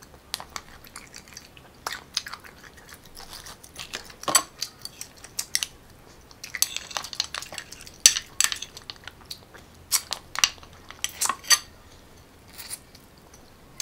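Close-up eating of sea snails: chewing, with irregular sharp clicks of shells and a toothpick against the plate and a few short slurps.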